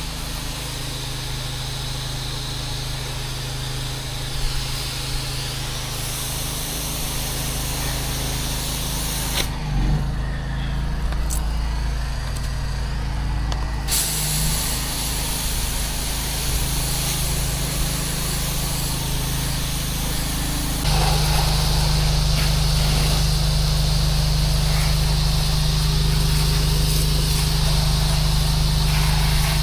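Pressure washer engine running steadily under the hiss of high-pressure water spray. The sound shifts abruptly a few times, about ten, fourteen and twenty-one seconds in.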